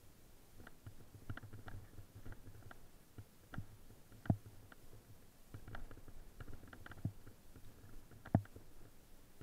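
Fat bike riding over a snowy trail, heard from a bike-mounted camera: a low rumble from the tyres with many small rattling clicks from the bike, and two heavy knocks, one about four seconds in and one near the end.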